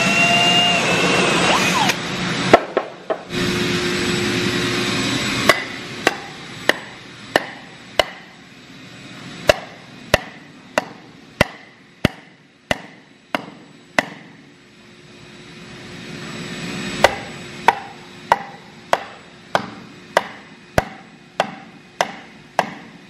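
A cordless drill whines as it bores through a rubber hockey puck and stops about two seconds in. Then a hammer strikes a wooden block held over steel anchor bolts to drive them into the concrete floor: a steady run of sharp knocks about one and a half a second, with a pause of a few seconds midway.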